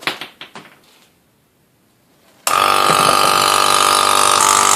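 A few quick clicks and knocks, then about two and a half seconds in a small electric pump switches on abruptly and runs loud and steady with a strong whine.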